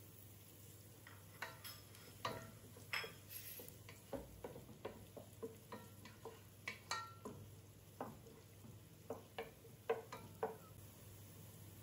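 Spatula stirring chopped onions in a non-stick pot, knocking and scraping against the pot's side and base in a loose series of soft taps. The taps begin about a second in and stop shortly before the end.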